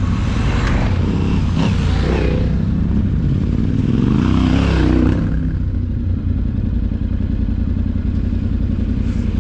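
Adventure-touring motorcycle engine running under throttle on rough dirt, its revs rising and falling around the middle, with clattering knocks from the bike over the rough ground in the first two seconds.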